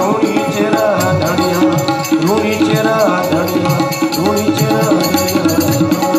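Rajasthani folk bhajan played live: harmonium and tabla, with manjira keeping time, under a man's voice singing the melody with bending, drawn-out notes.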